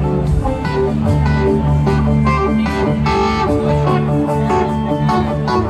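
Live Southern rock band playing a slow instrumental jam: electric guitar leading over bass, drums and keyboards.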